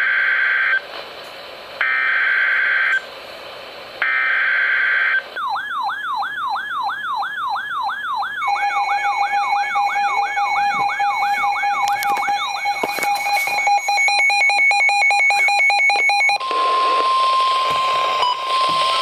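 NOAA Weather Radio flash flood warning alert: three screeching bursts of SAME header data, each about a second long. A siren-like alarm then wails up and down about four times a second and gives way to steady, pulsing beeps. About 16 seconds in comes the steady single-pitch 1050 Hz warning alert tone.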